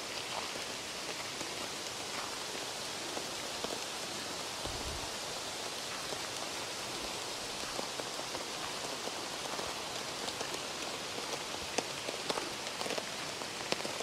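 Rain falling steadily, a dense patter of many small drops, with a brief low bump about five seconds in.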